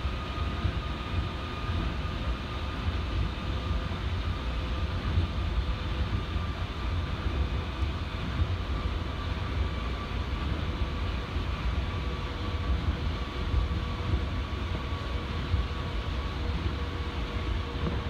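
Osaka Monorail train running steadily along its elevated concrete guideway, heard from inside the front cab. A constant low rumble of rubber tyres on the track beam, with a faint steady whine above it.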